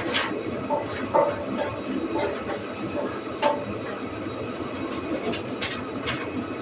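Sawmill machinery running steadily with a clattering rumble, with irregular sharp clanks every second or so.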